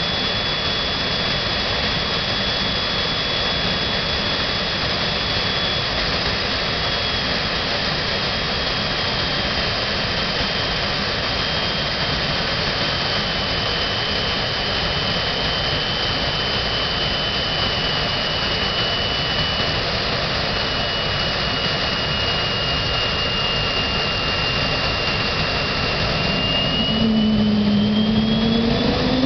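Fairchild J44 turbojet running on a test stand: a steady jet rush with a high whine that slowly sinks in pitch. Near the end the whine rises again and the engine grows louder as it spools up.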